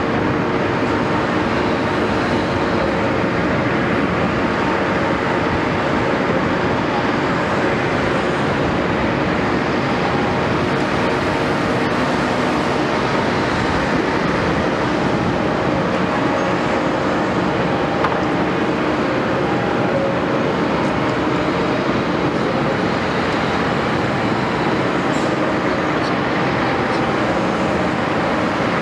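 Caterpillar 329E excavator's diesel engine running steadily, with an even mechanical drone that does not rev up or down.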